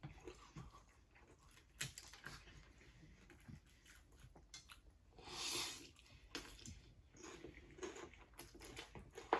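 Close-up chewing and biting into Jollibee fried chicken: faint wet smacks and crunches scattered throughout, with one louder sound lasting about half a second, some five seconds in.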